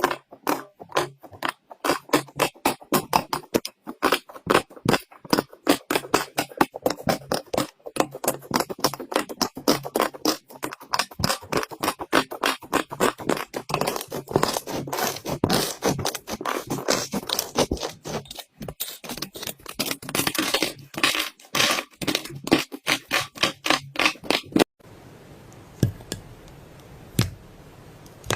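Slime being squished and worked by hand, making a dense, irregular run of wet clicks, pops and crackles. It cuts off abruptly near the end, leaving only a few faint clicks.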